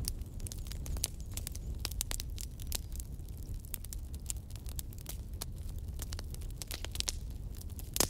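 Wood campfire crackling, with rapid irregular pops and snaps over a low steady rumble, and one sharper pop at the very end.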